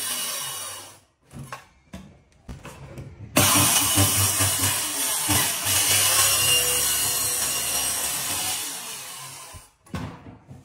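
Handheld power cutting tool: a few short bursts, then about six seconds of steady, loud running that tapers off near the end.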